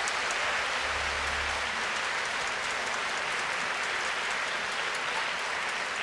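Audience applauding steadily in a large concert hall, a dense even clapping.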